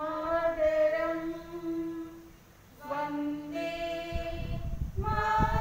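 A woman's voice singing unaccompanied, in long held notes, with a short break about two and a half seconds in before the next line. A low rumbling noise joins in near the end.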